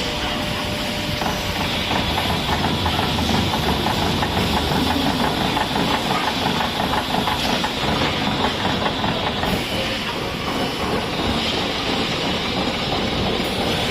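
Machinery on a truck wheel rim forming and welding line running, with a steady hiss and a fast, even rattle in the middle of the stretch.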